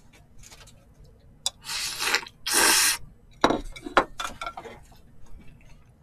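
Thin somyeon wheat noodles slurped into the mouth in two long sucks, followed by a few sharp clicks of chopsticks and bowl.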